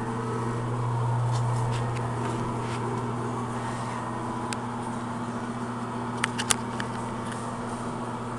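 Steady electric motor hum from shop machinery, with a few sharp clicks about six seconds in.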